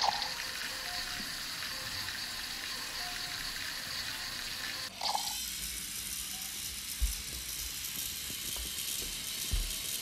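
Small electric gear motor of a toy building-kit remote-control car, whirring steadily as the car drives across a wooden floor. Two low thumps come about seven and nine and a half seconds in.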